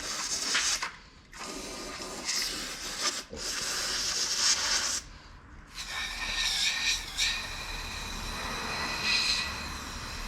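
Mechanic's tools at work: a long hiss lasting a few seconds, then a power tool whirring in short spells with a steady high whine.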